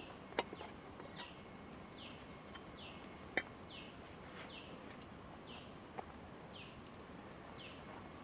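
A bird calling over and over, each call a short whistle falling in pitch, roughly one or two a second, over steady forest background noise. Three sharp clicks or snaps stand out: near the start, in the middle and a little after.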